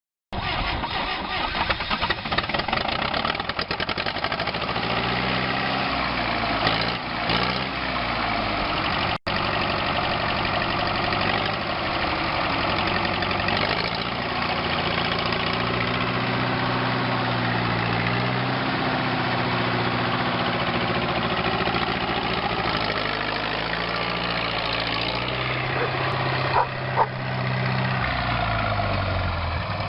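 Valmet tractor's diesel engine running, its engine speed rising and falling several times. The sound drops out for an instant about nine seconds in.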